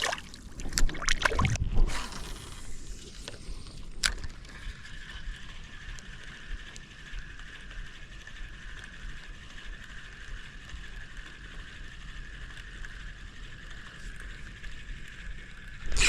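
Water splashing for the first two seconds. About four seconds in a sharp click, then a steady, slightly wavering whine as a spinning fishing reel is cranked to retrieve the line.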